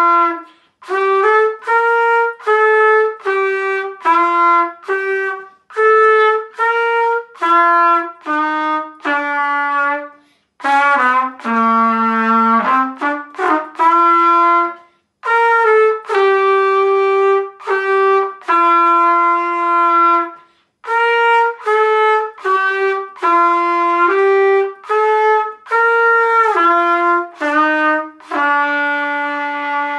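Solo trumpet playing a melody in separate, clearly tongued notes, in phrases broken by short breath pauses, with a quick run down to a low note midway and a longer held note at the end.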